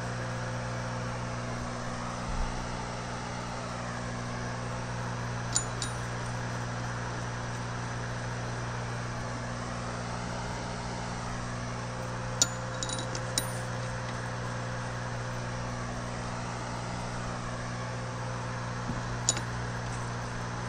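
Steel bolts clinking lightly a few times as they are handled and set into a transmission differential's ring gear, over a steady hum.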